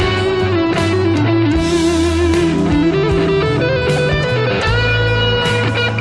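Instrumental background music led by electric guitar, with a bass line underneath.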